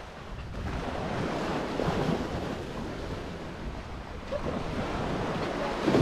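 Wind buffeting the microphone over washing sea waves: a steady rushing noise with a heavy low rumble.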